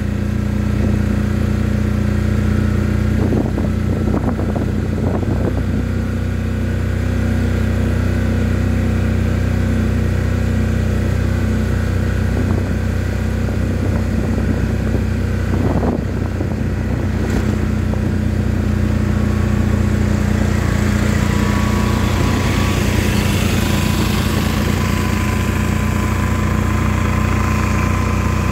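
Engine of the vehicle carrying the recorder running steadily at a constant pitch while driving, with wind and road noise growing louder in the second half.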